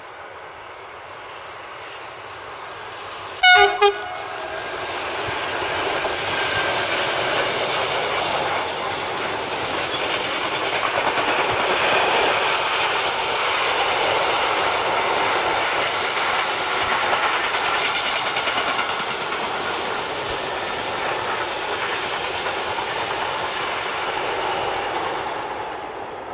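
Freight train hauled by a class 186 Bombardier TRAXX electric locomotive passing: one short blast of the locomotive's horn a few seconds in, then the steady rumble and clatter of the wagons rolling by, fading away near the end.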